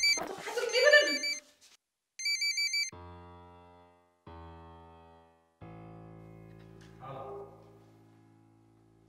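An electronic telephone ringtone warbling in short trills, over a woman's voice at the start. About three seconds in it gives way to three low, sustained musical chords, each fading away.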